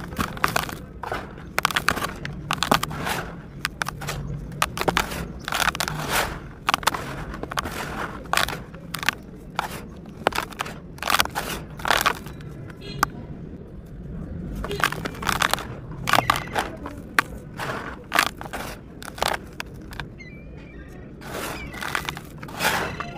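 Hands crushing and crumbling dry, dusty blocks of sand-like material in a plastic tub: irregular gritty crunches and the hiss of loose grains pouring down, with brief lulls about halfway and near the end.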